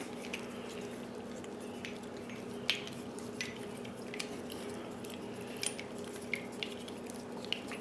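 Small sharp metal clicks every second or so as a hex driver works a set screw in a padlock body, over a faint steady hum.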